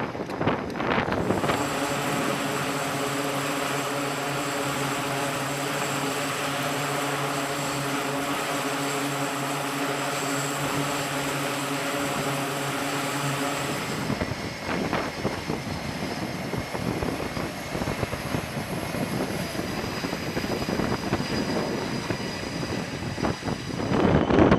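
Aircraft engine noise: a steady propeller-type drone with an even pitched hum, which gives way about fourteen seconds in to an unsteady rushing noise.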